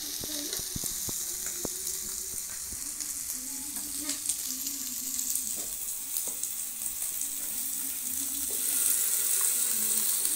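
Sausage pieces and meat sizzling on a hot grill pan, a steady crackling hiss that grows a little louder near the end. A few light clicks in the first two seconds.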